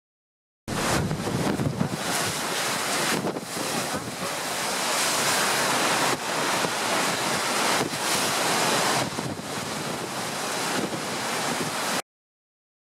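Wind rushing over the microphone together with the wash of the open sea below. The sound cuts in abruptly just under a second in and cuts off abruptly about a second before the end.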